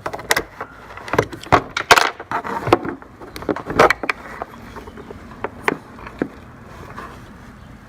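Socket wrench working an 8 mm bolt out of the air-filter housing: irregular metallic clicks and clinks for several seconds, dying away about six seconds in.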